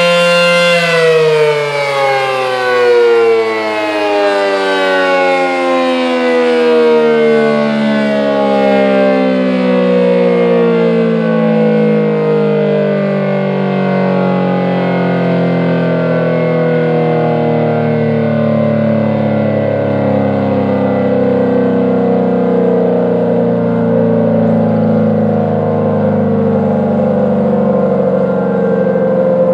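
ACA P-10 outdoor warning siren winding down after its test. The steady tone breaks about a second in, and the pitch then falls slowly and smoothly as the rotor coasts down.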